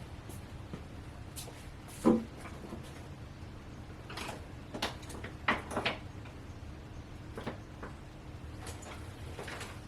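Hand tools and metal parts knocking and clicking during work in a car's engine bay: scattered handling sounds, with one heavier knock about two seconds in and a cluster of clicks and clunks around five to six seconds in.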